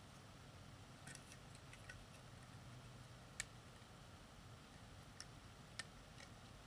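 Faint, scattered clicks of plastic Lego bricks being handled and pressed together, the sharpest about three and a half seconds in, over a low steady hum.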